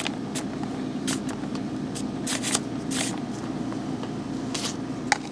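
Fingers rubbing wet acrylic gel medium across paper card stock: irregular short swishing strokes, about two a second, over a steady low hum.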